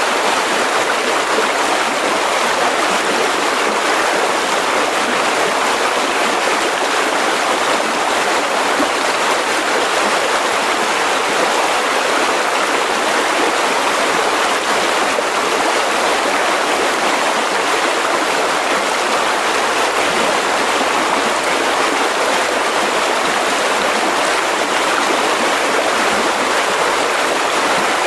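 A mountain river rushing steadily over rocks, a constant even rush of water with no breaks or changes.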